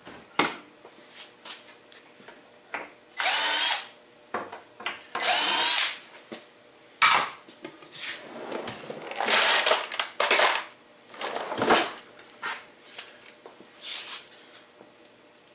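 Cordless drill driving screws into a drawer front through pre-drilled holes, in short runs of motor whine: two of nearly a second each, then several shorter bursts. Clicks and knocks from handling the drill and the drawer parts come between the runs.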